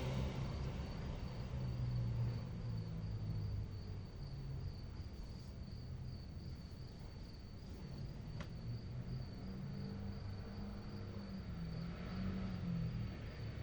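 Crickets chirping in a steady, fast-pulsing high trill, over a low continuous rumble, with one faint click about eight seconds in.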